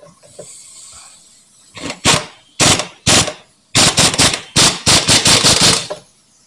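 Pneumatic impact wrench hammering in a string of short bursts, closer together in the second half, as it runs bolts down on a VW Karmann Ghia's front beam.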